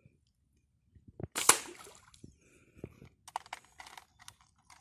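Fishing slingshot shot: a sharp snap about a second and a half in as the bands are released, with a short rushing hiss after it as the line runs out. From about three seconds in comes a run of small clicks and rattles from the wrist reel.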